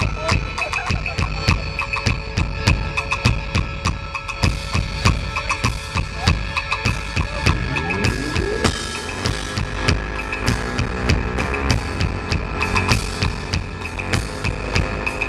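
Live band playing electronic pop with a drum kit keeping a steady, fast beat under keyboards. A rising sweep climbs about eight seconds in.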